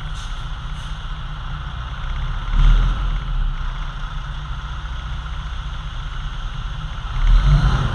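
Semi-trailer truck's diesel engine idling, given a short, slight rev about two and a half seconds in and again near the end. The revs drive the hydraulics that raise the rear tipper trailer's body to tip its load.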